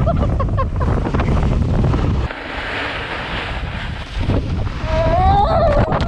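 Wind buffeting a moving snowboarder's camera microphone as a heavy, rumbling noise. About two seconds in it eases to a softer, higher hiss, and the rumble returns about two seconds later.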